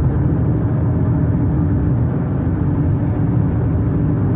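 Steady, low road and engine noise heard inside a moving car's cabin.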